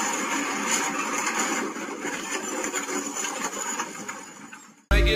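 Steady rushing traffic noise on a highway, fading away over the last second. Music then cuts in abruptly at the very end.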